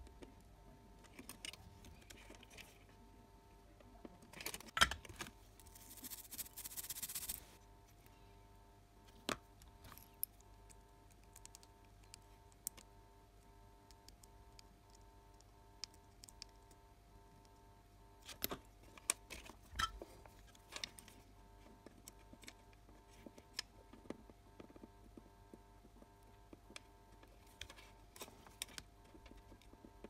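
Faint, scattered clicks, taps and scrapes of metal tools handling a small circuit board during soldering, with a short hiss about six seconds in. A faint steady hum runs underneath.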